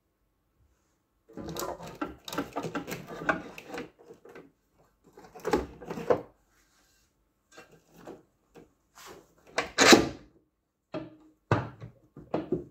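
Parts of an electric-car battery charger being handled and fitted during reassembly: irregular knocks, clatter and scraping. It starts about a second and a half in and is loudest near the ten-second mark.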